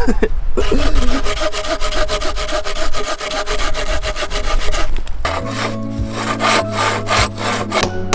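Hand pruning saw cutting into a peeled log in quick back-and-forth strokes. About five seconds in, music with steady held notes comes in.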